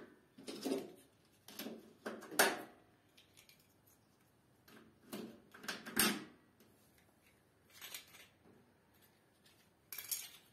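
Plastic DIN-rail terminal blocks being pushed and snapped onto a metal mounting rail: a handful of separate clicks and clacks at irregular intervals, the loudest about six seconds in.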